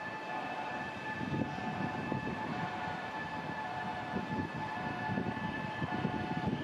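Distant shipyard machinery running: a steady high whine over an uneven low rumble.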